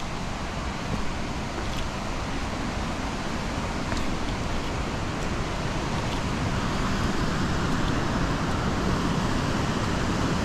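River water rushing over rocky rapids: a steady hiss that grows a little louder about halfway through.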